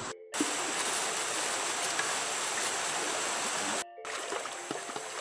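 Steady rush of a flowing jungle stream, cut off abruptly twice. It is louder between the two cuts and a little quieter after the second, with a few faint ticks over it.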